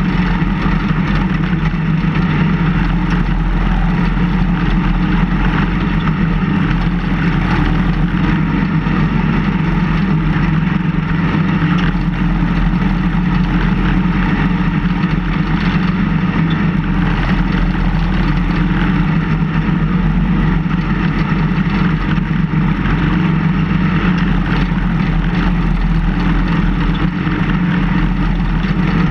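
Engine of a snowplow vehicle running steadily while its blade pushes snow.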